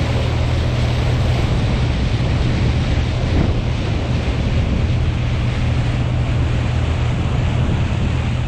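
Tug's Caterpillar marine diesel running steadily under way, a low hum under the rush and splash of the bow wave along the hull, with wind buffeting the microphone.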